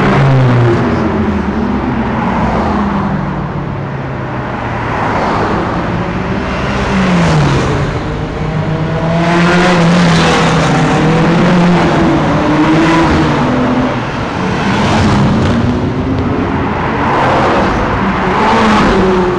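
Ferrari sports cars, among them an F430 and a 458 Italia, driving past one after another with their engines revving. Their engine notes rise and fall as each car accelerates by, with the loudest passes about halfway through and near the end.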